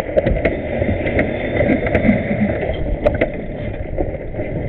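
Steady rumbling wind and water noise on a small camera aboard a sailboat under way, with a few sharp clicks and knocks from rigging and handling.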